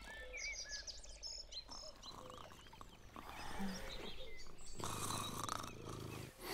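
Woodland birds chirping and twittering in short high calls. About five seconds in comes a long breathy snore from a sleeper.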